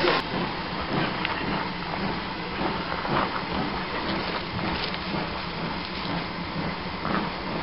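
Steam locomotive moving slowly alongside a platform: a steady hiss of steam with a few faint clanks.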